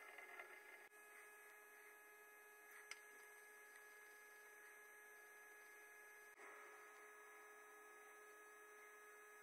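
Near silence: a faint, steady electrical hum made of several thin, even tones, with brief small breaks where the picture cuts.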